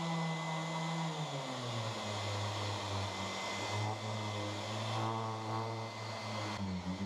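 Electric random orbital sander running on a plywood sheet. Its motor note drops about a second and a half in, then holds steady, with a thin high whistle over it.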